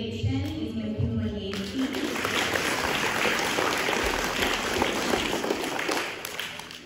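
Audience clapping. It starts about a second and a half in and dies away near the end.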